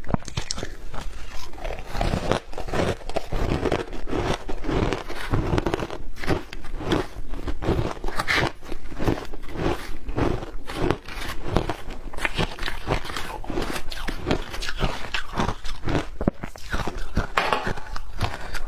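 Shaved ice dusted with matcha milk powder being bitten and chewed up close: continuous crunching, a dense run of crackly snaps.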